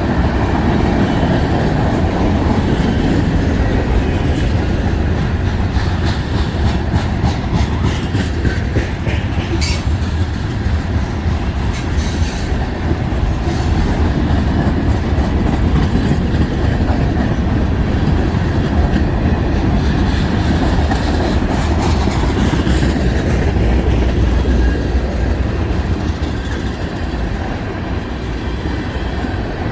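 Freight cars of a long mixed freight train rolling past, a steady loud rumble with wheels clacking over the rail joints. Brief high squeals of the wheels come about ten seconds in and again around twelve to thirteen seconds.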